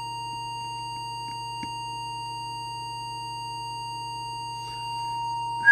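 Steady 1 kHz audio test tone, the modulating tone used while setting a CB transmitter's FM deviation, with a low hum under it. A faint click about one and a half seconds in.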